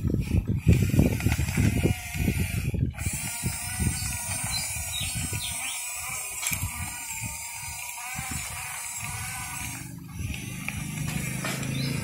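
Remote-control toy crawler bulldozer driving, its plastic tracks and gears clicking and rattling as it crawls over dry twigs. A steadier pitched motor whine comes through in the middle stretch.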